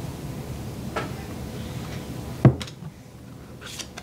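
Handling noise on a handheld microphone: a light click about a second in, then one sharp knock about two and a half seconds in, with a few faint clicks near the end over a low steady background noise.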